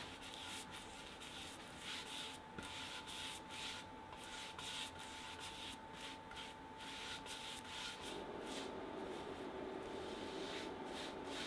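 Paintbrush strokes brushing primer onto a pine trim board, a soft bristle swish about twice a second, over a faint steady hum.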